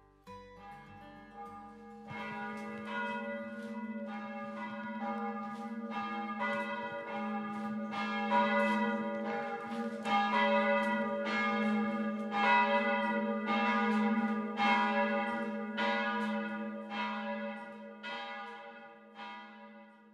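Church bell ringing in a steady swing, a struck note with long ringing overtones about every 0.7 s over a sustained hum. It swells up about two seconds in and fades away near the end.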